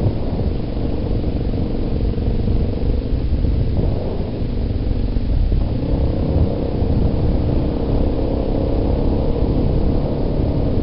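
Yamaha Big Bear ATV's single-cylinder four-stroke engine running at a steady trail pace, its pitch shifting a little a few seconds in. A heavy low rumble of wind buffeting the microphone runs under it.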